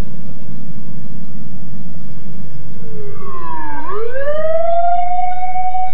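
A low rumble, then about three seconds in a siren's tone slides down, winds back up and holds a steady wail.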